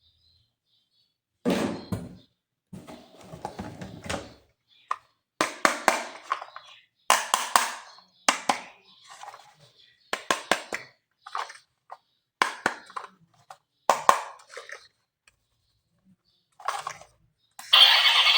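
Close-up handling of plastic toys and their packaging: a string of separate clicks, taps and rustles with silent gaps between them. Music comes in near the end.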